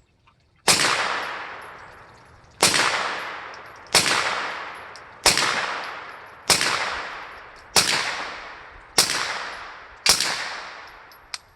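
Ruger PC9 9mm carbine fired eight times in slow, aimed succession, the shots a second or two apart, each ringing out in a long echoing tail. A short sharp click follows near the end.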